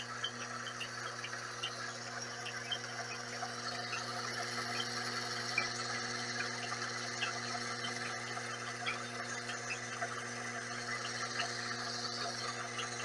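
Vevor 7x14 mini lathe running: a steady motor hum with a haze of drive noise and scattered light ticks.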